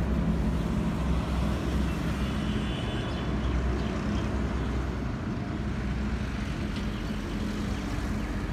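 A vehicle engine running steadily with a low hum, its pitch shifting slightly after about five seconds.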